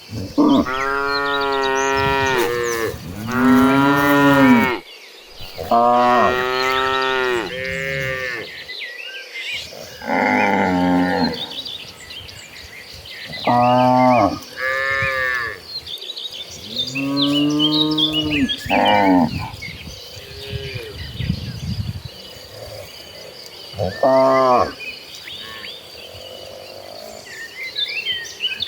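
A herd of cattle mooing: about ten long calls, some overlapping, each rising and then falling in pitch, with short quiet gaps between them.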